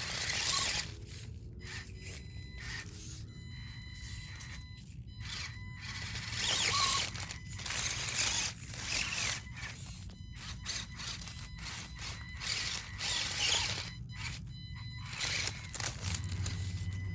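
SCX24 mini RC crawler with hard 3D-printed tires driving; the tires scrape and slide over the surface in stop-start spurts with brief gaps, showing they have little grip.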